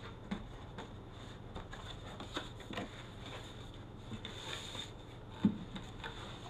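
Cardboard box being opened by hand: small clicks and rubbing as the tape is slit and the flaps are folded back, a short scrape of cardboard, and a single knock about five and a half seconds in.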